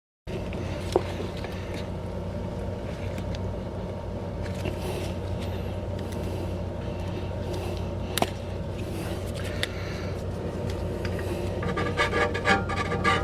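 A steady low hum with a few sharp clicks and light scraping of hand work on the brake wear sensor and its housing, busier near the end.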